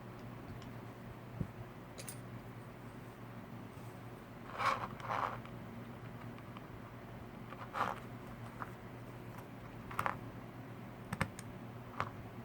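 Irregular small clicks and taps of tools and tiny parts being handled while a brushed micro quadcopter is taken apart, the loudest a pair near the middle, over a steady low hum.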